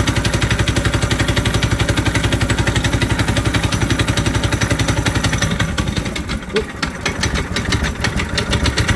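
Predator 212cc single-cylinder four-stroke engine running on choke just after a cold start. It fires in a steady rapid beat, then runs weaker and more unevenly for a couple of seconds past the middle before picking up again.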